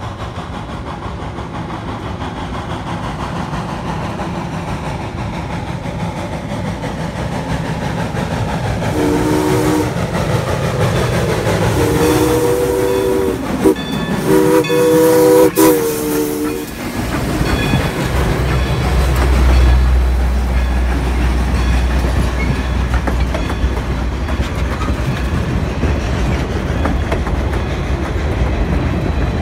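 Steam locomotive No. 40 approaching and passing close by, sounding three blasts on its steam whistle, the first short and the last two longer. It is followed by its passenger coaches rolling past with a heavy low rumble and the clickety-clack of wheels over rail joints.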